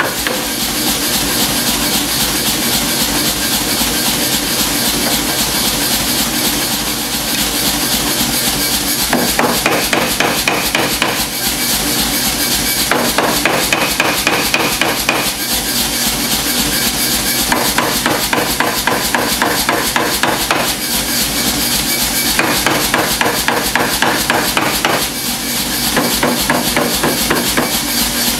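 Power hammer striking a red-hot mild steel bar in a rapid, continuous run of blows, flattening the blade of a forged spatula.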